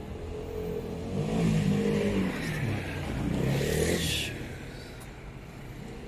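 A motor vehicle's engine passes close by, its pitch rising and falling as it revs, then fading away about four seconds in.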